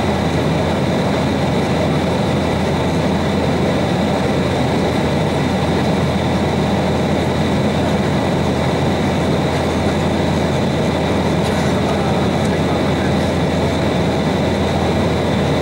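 Steady cabin drone of an Embraer 190 airliner in cruise, heard from inside the cabin: the constant low hum of its GE CF34-10E turbofan engines under the rush of air along the fuselage.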